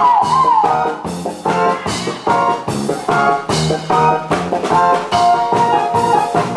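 Backing music for a stage song, with a steady drum beat, in an instrumental passage; a woman's singing line trails off about a second in.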